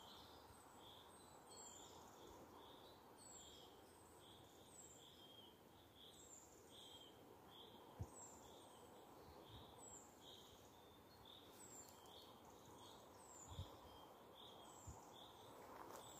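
Faint woodland ambience: high chirping calls repeat steadily, a falling note every second or so with shorter notes in between, over a soft hiss. A few soft thumps stand out, one about halfway through and one near the end.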